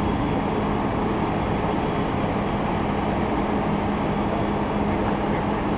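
An engine running steadily: an even rumble with a constant low hum, unchanging throughout.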